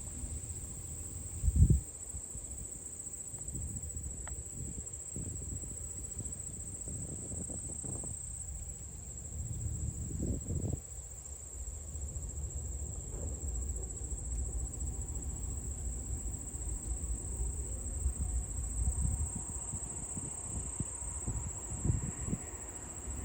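A steady, unbroken high-pitched chorus of insects shrilling in late summer, with a low rumble underneath. A single loud thump comes about a second and a half in.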